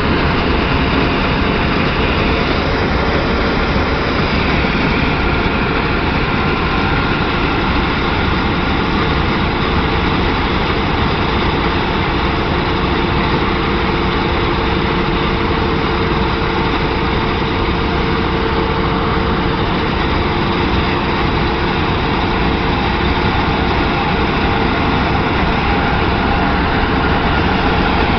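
Claas Lexion 600 combine harvester running steadily and loudly, its engine and machinery giving an even, unchanging drone.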